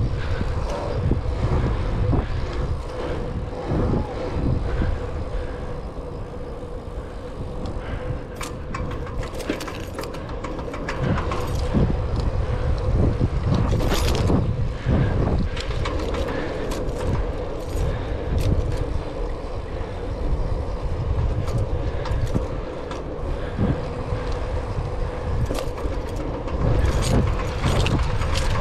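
Riding noise of a 700c single-speed bicycle on a road: wind buffeting the microphone and tyre rumble, under a faint steady hum. Scattered clicks and rattles come through, most of them from about eight to sixteen seconds in and again near the end.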